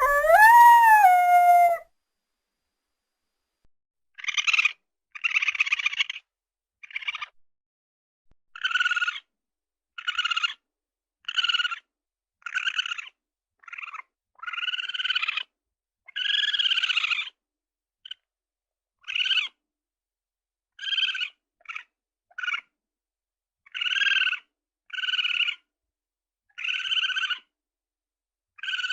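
Designed dinosaur vocalisation sound effects for Hypsilophodon, played one after another: a pitched call that rises and then falls at the start, then after a short pause a long run of short, raspy chirp-like calls, roughly one a second, each cut off into dead silence.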